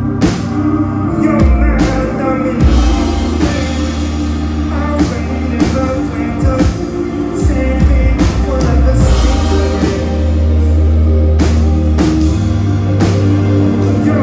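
Live band music at a concert, loud through the PA: heavy bass, repeated drum hits and a male singer's voice.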